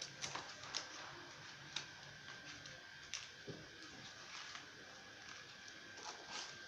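Faint, irregular light clicks and taps over a steady thin high whine.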